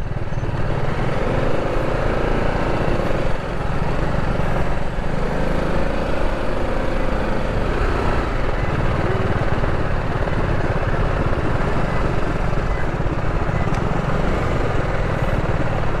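Sport motorcycle's engine running at low speed as it creeps along a rough dirt road, a steady rumble without revving.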